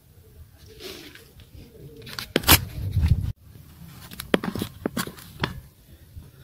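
Scattered clicks and knocks of hands handling bicycle parts. The sound cuts off abruptly about a third of the way in, then a few sharper clicks follow.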